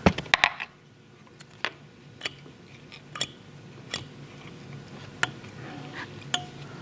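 Scattered sharp clicks and light ticks of fly-tying tools and thread being handled at the vise while whip-finishing, a quick cluster at the start and then single clicks every second or so.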